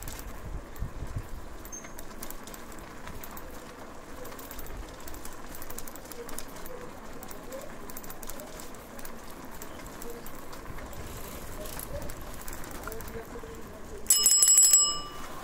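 A bicycle bell rung in a short burst of rapid strokes near the end, ringing with several clear tones for under a second, over a steady low street background.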